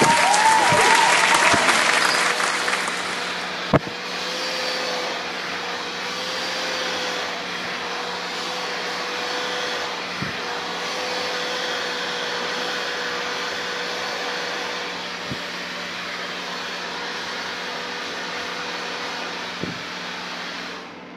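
Handheld hair dryer running steadily, blowing hot air over hair being dried on a round brush, with a steady hum. It is louder for the first three seconds or so, and there is a sharp click about four seconds in.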